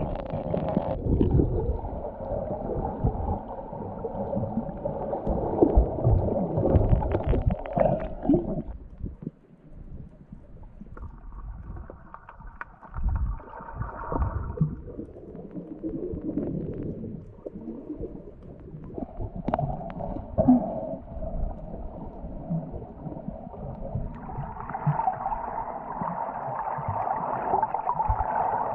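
Underwater sound picked up by an action camera in its waterproof housing while snorkelers free-dive: muffled gurgling and rumbling water with bubbles. A steady higher hum comes in twice, about halfway through and again near the end.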